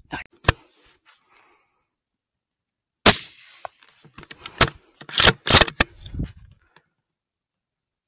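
Rifle shots: a sharp crack about half a second in, the loudest shot about three seconds in, then a quick string of cracks between about four and a half and six and a half seconds.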